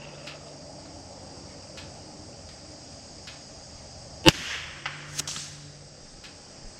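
.22LR rifle shot about four seconds in: a single sharp crack. About a second later comes a softer click and rattle.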